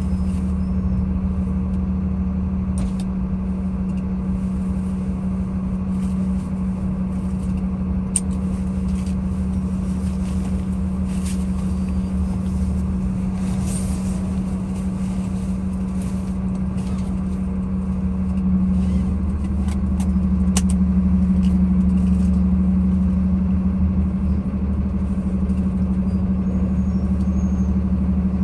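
Car engine and traffic noise in slow, heavy traffic: a steady low hum that grows a little louder about two-thirds of the way through, with a few faint clicks.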